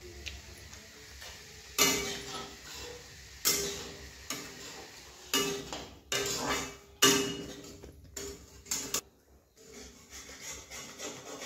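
A metal spatula scraping and clinking against a steel kadhai as dry semolina is stirred and roasted. It comes as repeated strokes every second or so, each with a brief metallic ring, and dies down near the end.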